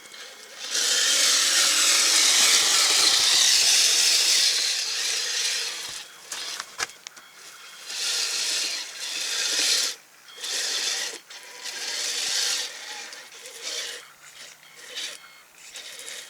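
Kyosho Blizzard RC snowcat's drive and plastic tracks running through fresh snow in throttle bursts. A long run of about five seconds comes first, followed by a string of shorter spurts with brief pauses between them.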